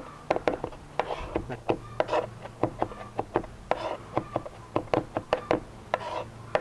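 Chef's knife mincing garlic, ginger and jalapeño on a bamboo cutting board: an uneven run of sharp taps, several a second, with brief scrapes of the blade between them.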